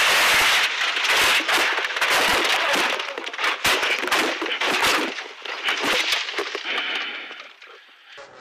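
A rally car crashing off the road and tumbling, heard from inside the cabin: a rapid, loud clatter of hard impacts and crunching bodywork as the windscreen shatters. It thins out and fades away over the last few seconds.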